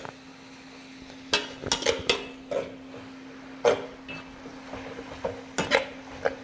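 Metal utensil clanking against a pan while noodles are stir-fried: a series of short, irregularly spaced knocks over a steady low hum.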